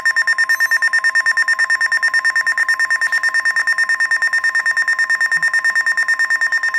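Weather radio sounding a severe thunderstorm warning alert: a rapidly pulsing high-pitched beep over the steady 1050 Hz NOAA Weather Radio warning alarm tone, which cuts off near the end.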